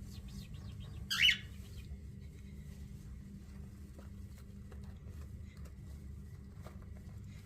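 A baby cockatiel gives one short, harsh call about a second in, the loudest sound here, with faint small scratches and rustles around it.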